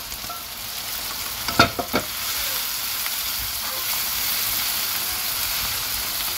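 Ground-meat kebab patties and tomato-onion sauce sizzling in oil in a frying pan while a wooden spatula stirs them. A few knocks of cookware come about a second and a half in, and the sizzle grows louder just after.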